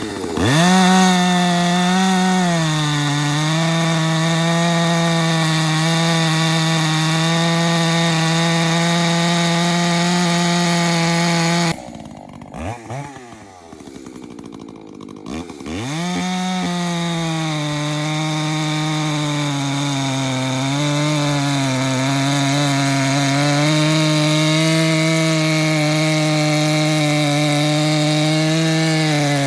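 Ported Echo CS590 chainsaw with a 24-inch full chisel skip chain held at high revs under load, cutting along the grain to throw long noodles. About twelve seconds in it drops to idle for roughly four seconds, then revs back up and cuts on steadily.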